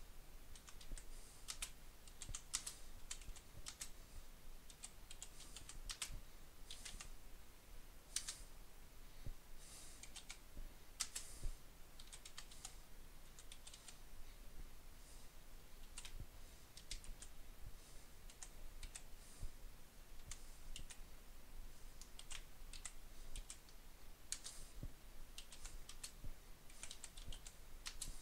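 Typing on a computer keyboard: irregular key clicks in quick runs with short pauses between them.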